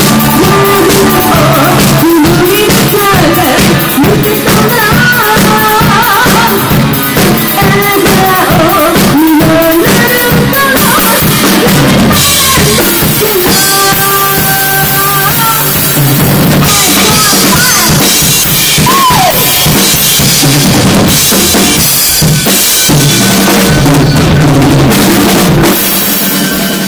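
Live rock band playing loud: a woman singing lead over electric guitar and a busy drum kit with bass drum and snare. The music eases off slightly near the end.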